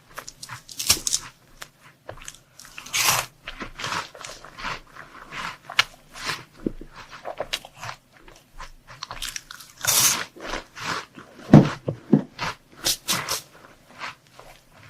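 Close-miked crunching and chewing of crunchy chocolate sweets, in irregular crisp bites, the loudest about ten seconds in.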